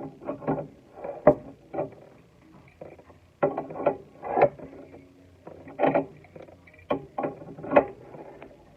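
Irregular knocks, clicks and clatter of a water supply hose's nut being screwed on and tightened under a sink.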